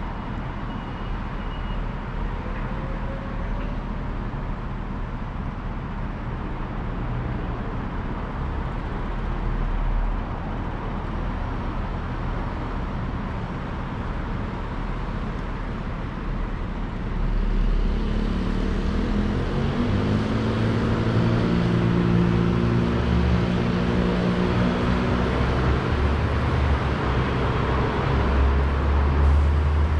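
City street traffic: a steady wash of passing vehicles. About halfway through, a nearby engine grows louder, its low hum rising in steps.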